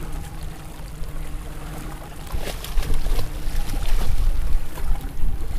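Wind rumbling on the microphone over water lapping at a small boat, getting louder about two and a half seconds in, with a few sharp splashes.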